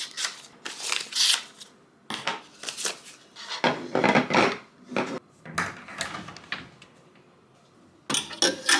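Objects being handled and set down by hand: a series of short clatters and rustles, loudest about four seconds in, with a brief lull near the end.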